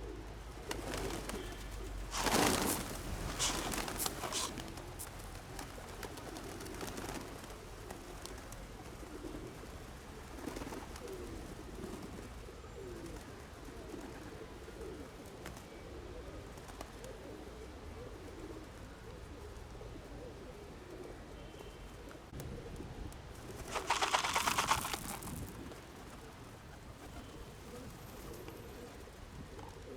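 Birds cooing over and over in the background, a soft wavering call. Two louder noisy bursts stand out, one about two seconds in and one a few seconds before the end.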